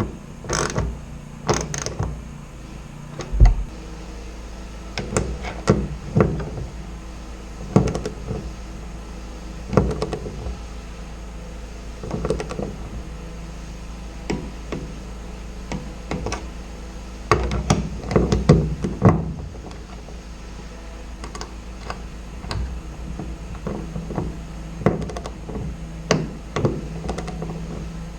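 Hand tools working on the airframe as the pedal and brake brackets are bolted and riveted to the cabin floor: irregular knocks, clicks and clinks, busiest about two-thirds of the way in, over a steady low hum. There is one heavier thump a few seconds in.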